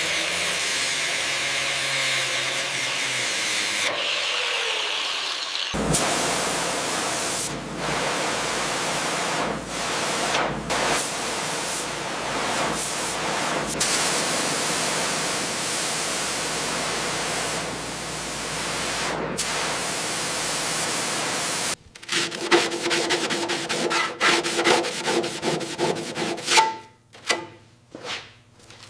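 Abrasive rubbing and scraping strokes, like sanding, in several cut-together stretches; the last stretch is a fast, uneven run of short strokes.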